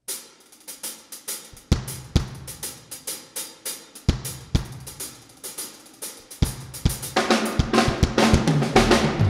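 Band intro led by a drum kit: quick hi-hat and cymbal strokes over kick and snare hits, with low electric bass notes under some of the beats. The sound grows fuller and louder over the last couple of seconds.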